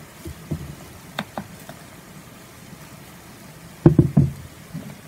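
Ceramic bowl being handled and set down on the tabletop: a few light taps in the first two seconds, then a louder cluster of three or four knocks a little before the end.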